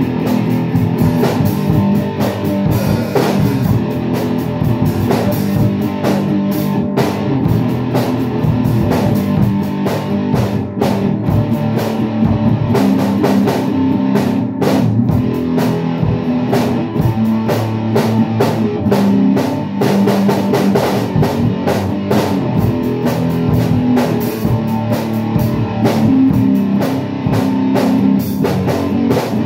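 A rock band playing: electric guitar over a drum kit with cymbals, with a steady run of drum hits.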